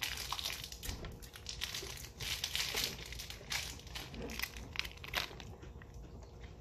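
Plastic candy wrappers crinkling and rustling as they are handled, in irregular crackly bursts.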